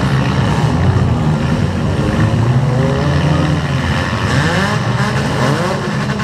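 Demolition derby car engines running loud, revving up and down several times with rising and falling pitch over a steady low drone.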